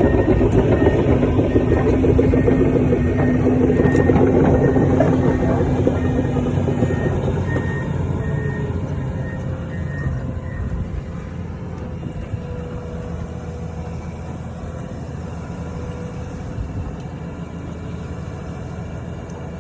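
Heavy construction machine's engine running, with its warning alarm beeping about twice a second. The beeping stops about ten seconds in, and the engine sound gradually fades away.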